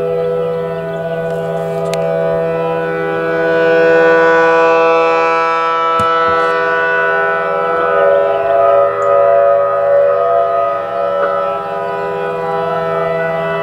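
Several outdoor warning sirens sounding together in a test, a chord of steady tones at different pitches. The sound swells and fades as the rotating sirens sweep around.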